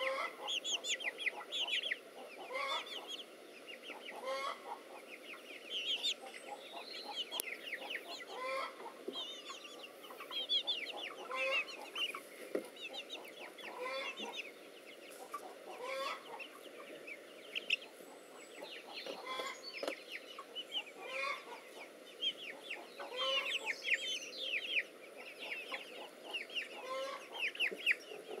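Young poultry chicks peeping in rapid high chirps, with a hen's low clucks every second or two.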